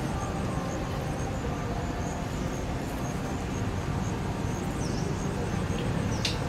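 Steady outdoor background noise with a low rumble, faint high ticking and a couple of brief high chirps near the end.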